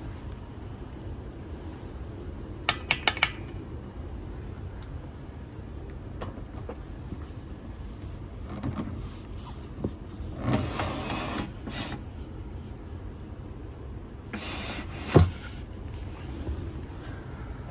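Fabric window blind in a double-decker train coach, pulled along its rail with a rasping slide, then sliding again and stopping with a sharp knock. Four quick clicks sound about three seconds in, over a steady low hum in the coach.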